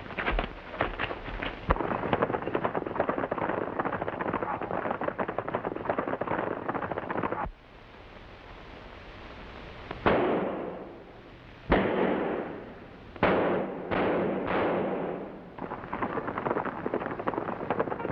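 Revolver shots fired at a wooden door, five in all, spaced a second or so apart from about ten seconds in, each with a fading ring. A dense crackling clatter fills the first seven seconds and returns near the end.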